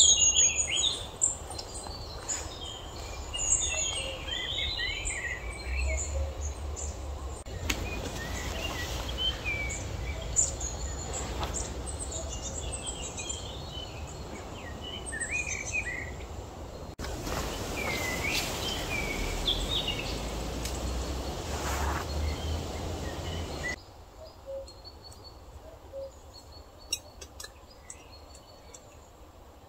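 Several small songbirds chirping and singing over a low rumble. The birdsong and rumble drop away abruptly about three-quarters of the way through, leaving only faint ticks.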